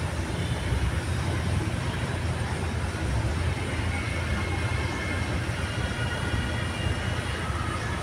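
Steady low rumble of street noise, with a faint high whine in the second half.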